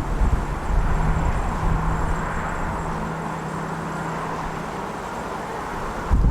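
Gusty wind rumbling on an outdoor microphone, with a steady low hum through the middle; the rumble swells again near the end.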